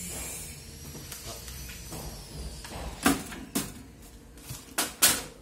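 Posiflex cash drawer's sheet-steel housing and parts being handled: soft rustling at first, then a handful of sharp metal knocks and clicks in the second half as parts are set in place.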